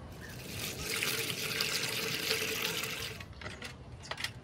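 Water pouring into a plastic bucket to make an electrolysis bath, running steadily for about two and a half seconds and then stopping, followed by a few drips and small splashes.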